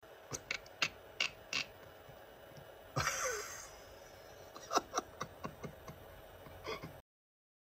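A series of sharp clicks and knocks, then a sudden heavy thud about three seconds in, followed by a brief falling cry: a person falling hard to the floor behind a bar counter.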